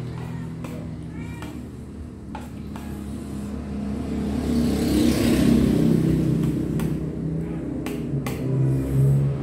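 A steady motor engine hum that swells louder about halfway through, with a few sharp clinks of a spoon against a plate.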